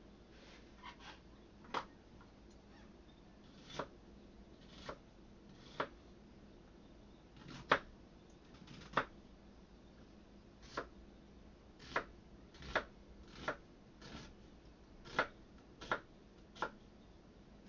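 Irregular light knocks and clicks of kitchen utensils and containers being handled on a counter, roughly one a second, over a faint steady hum.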